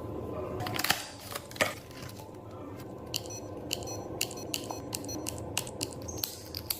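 Small tools clicking and tapping against the parts of an opened iPhone 12 during a battery replacement. Two sharper clicks come about a second in, then a quick run of lighter ticks, with a steady low hum underneath.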